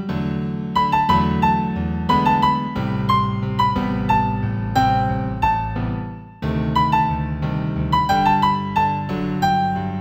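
New-age piano music in G major: a melody of struck notes over held chords. The sound dips just after six seconds in, then a new phrase begins.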